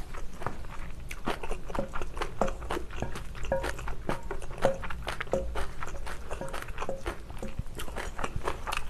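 Metal spoon and chopsticks clinking and scraping against a stainless steel mixing bowl, many of the taps leaving a short ring, over close-up chewing of mixed rice.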